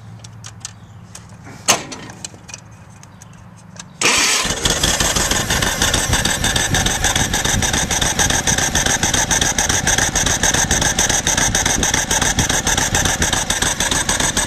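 A few light clicks, then about four seconds in the 1964 Farmall Cub's four-cylinder flathead engine starts abruptly and runs steadily with a fast, even firing pulse. It is running too rich: the carburetor is flooding, which the owner puts down to raw fuel being sucked through the main jet into the venturi.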